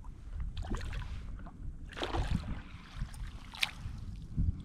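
Irregular splashing and sloshing of shallow sea water, a few separate splashes, over a steady low wind rumble on the microphone.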